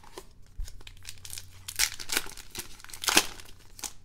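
A trading-card pack's wrapper being torn open and crinkled by hand, in a quick run of crackles with the loudest rips near the middle and about three seconds in.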